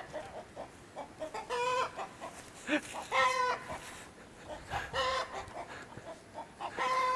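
Rooster giving a series of short calls, four in all, spaced about two seconds apart.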